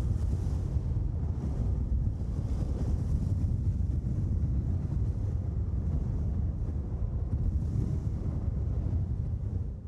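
Wind blowing in gusts: a heavy low rumble with a hiss above it that swells and ebbs, beginning to fade near the end.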